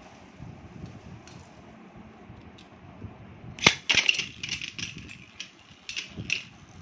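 Metal-rimmed Beyblade spinning tops in a plastic lid arena. One top spins quietly, then a little over halfway through a sharp clack sounds as the second top lands. A rapid run of clashing clicks follows as the tops strike each other and the plastic rim.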